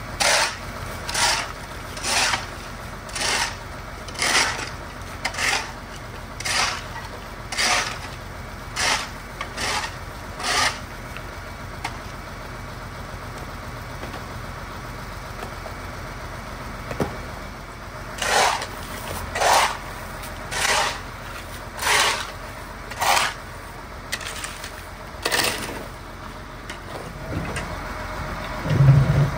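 Rhythmic scraping, one stroke about every second: a run of about ten strokes, a pause of several seconds, then about seven more. Under it is a low steady engine hum.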